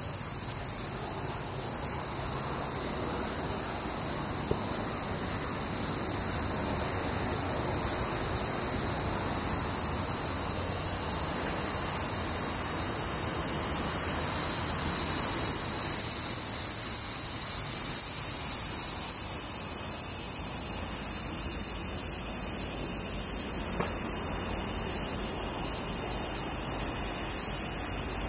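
Chorus of cicadas shrilling steadily, growing louder over the first ten seconds or so and then holding.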